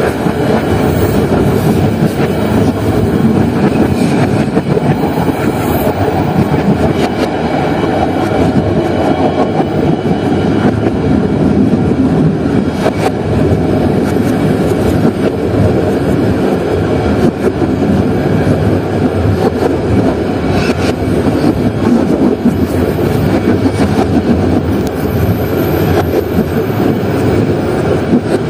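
Train running along the line, heard from on board: a steady, loud rumble of wheels on rails with a few faint clicks.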